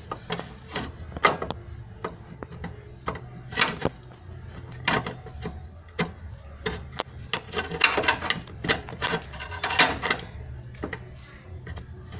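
A run of irregular sharp metallic clicks and knocks, from tools and suspension parts being handled under the car, over a low steady hum.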